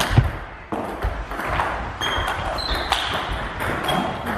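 A table tennis ball is struck hard once near the start, ending the rally. A few short, high squeaks from shoes on the sports-hall floor follow, over a steady hall background.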